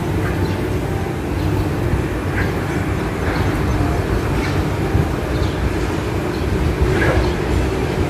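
A steady low rumble, with short high calls from a myna about once a second, faint over the rumble.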